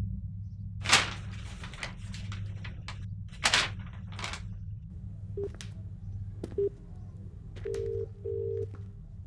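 Sheets of paper rustling and crackling as old documents are handled and leafed through, a few sharp rustles in the first half. Then a phone ringing: brief beeps, then two tones close together near the end, over a steady low drone.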